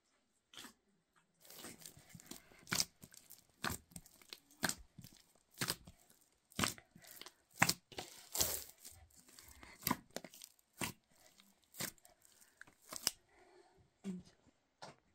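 Hands kneading a large batch of bread dough in a metal basin: sticky pressing and tearing strokes, about one a second.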